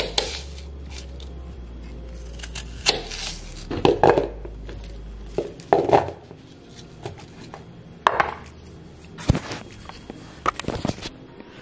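Kitchen knife slicing a crisp apple on a cutting board: crunches of the blade through the fruit and knocks of the knife on the board, irregularly every second or two.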